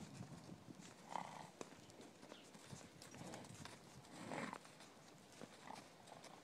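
Faint, uneven hoofsteps of a horse walking on snow-covered ground, with a slightly louder soft sound about four and a half seconds in.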